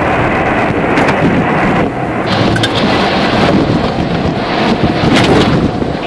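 Loud, steady rumbling road and wind noise from a moving police cruiser, picked up on its dash-cam audio, with a few sharp crackles.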